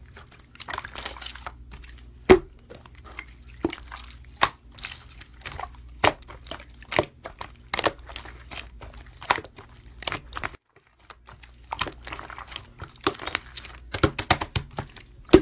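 Hands squishing, poking and stretching slime, giving irregular sharp clicks and pops several times a second with soft squelching between them, the loudest pop about two seconds in.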